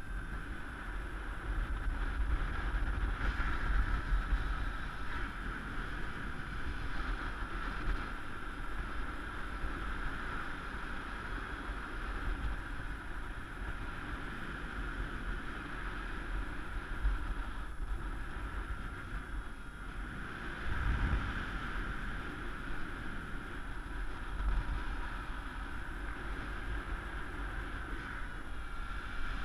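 Airflow buffeting the camera's microphone in paraglider flight: a steady rumbling rush with a constant, slightly wavering tone running through it.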